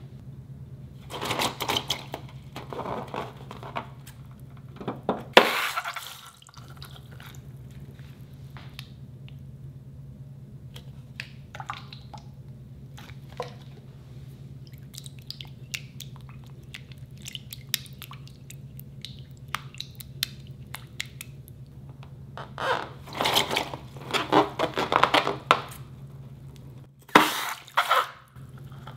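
Wet, sticky sounds of thick white slime glue in a glass bowl: drips and squelches with scattered small clicks, several louder bursts, and a silicone spatula stirring it near the end. A steady low hum runs underneath.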